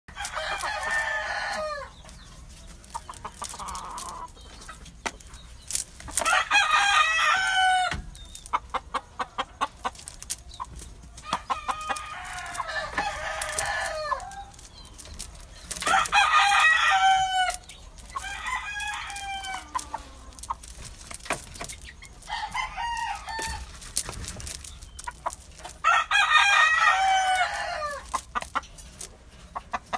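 Rooster crowing about seven times, each crow lasting one to two seconds, some louder and some fainter, with quick clicking sounds between the crows.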